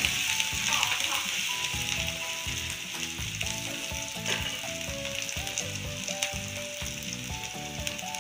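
Chopped garlic, green chilli and ginger sizzling steadily in hot oil in a kadhai over high heat.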